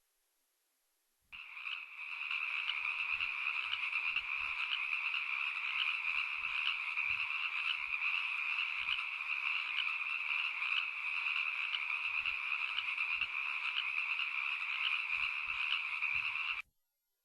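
A chorus of many frogs calling at once, a dense steady croaking that starts about a second in and cuts off abruptly near the end.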